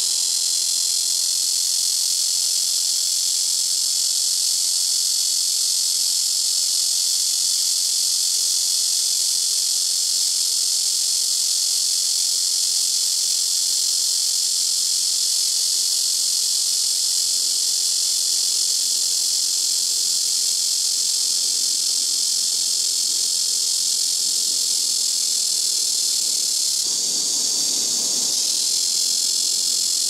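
Black cicada (Cryptotympana atrata) singing: a loud, steady, unbroken high-pitched buzz.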